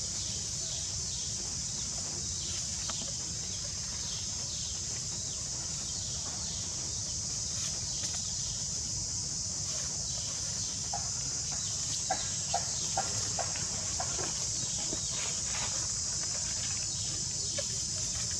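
Steady high-pitched drone of insects, with scattered short chirps and a few brief, clipped animal calls about two-thirds of the way through.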